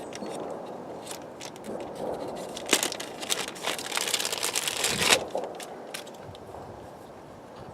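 Hands handling plastic seat-trim and switch parts: rustling and crinkling with many small clicks, busiest from about three to five seconds in, then dying down.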